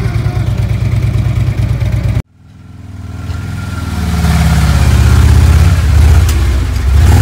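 Harley-Davidson Electra Glide's V-twin engine idling steadily. After an abrupt cut about two seconds in, it runs under throttle and grows louder as the bike is ridden up into the trailer's garage.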